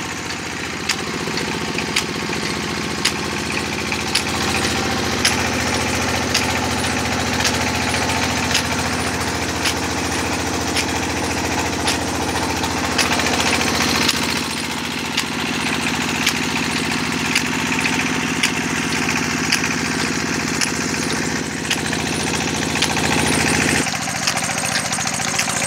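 Stationary engine running steadily, driving a sugarcane crusher through flat belts, with a sharp click about once a second.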